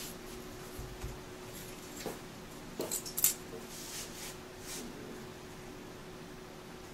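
Light metallic clicks and taps as a small copper fitting is handled against the tip of an aluminium cone, the sharpest click a little after three seconds in, over a faint steady hum.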